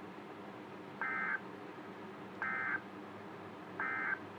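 Emergency Alert System end-of-message signal: three short, identical bursts of SAME digital data tones about a second and a half apart, marking the close of the tornado warning broadcast.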